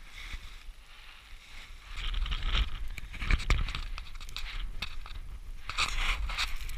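Boots and an ice axe shaft crunching and scraping into firm snow during a steep climb, in uneven bursts with sharp knocks, over a low rumble on the microphone that grows about two seconds in.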